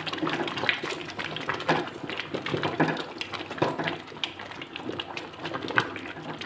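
Thick carrot, rice and milk pudding (gajrela) bubbling at a hard boil in a karahi, being stirred with a spatula: irregular wet pops and clicks over a low bubbling hiss.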